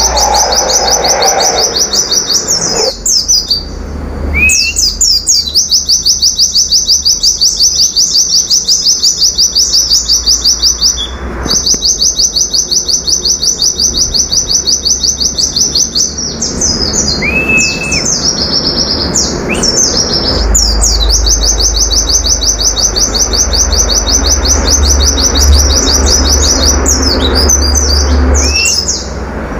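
White-eye (pleci) singing its rapid 'nembak' (shooting) song: long, very fast trills of high repeated notes, several seconds each, broken by short chirps and whistles.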